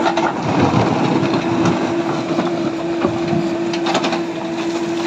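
JCB 3DX backhoe loader's diesel engine running under load with a steady whine, as the backhoe arm comes down and the bucket digs into wet, stony soil. Several sharp knocks of bucket and stones are heard through it.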